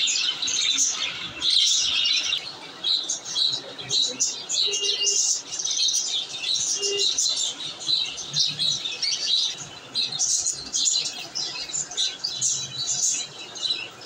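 Several budgerigars chattering together in rapid, overlapping short chirps.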